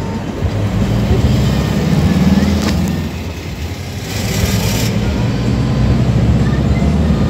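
Steady engine and road rumble heard inside a moving van's cabin, with a single click about three seconds in.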